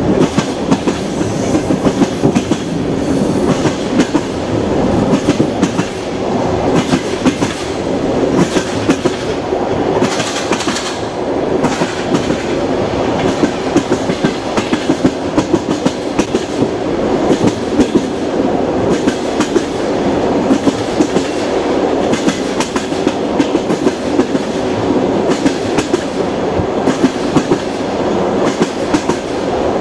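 Russian passenger train running along the track: a steady rumble with the wheels clacking over the rail joints again and again.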